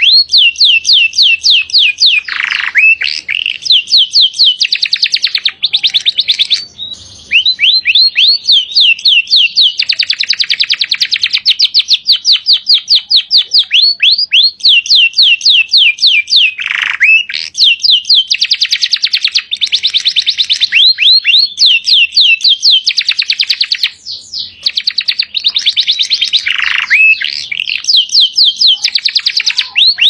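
Domestic canary singing loudly in long runs of rapid repeated trills, with three deep downward-sweeping notes and only a couple of short breaks.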